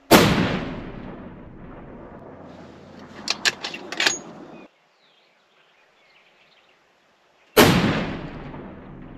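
Two shots from a Savage .338 Lapua Magnum bolt-action rifle fitted with a tuner muzzle brake, one at the very start and one about seven and a half seconds in, each a sharp crack with a long decaying tail. Between them comes a quick series of metallic clicks as the bolt is worked.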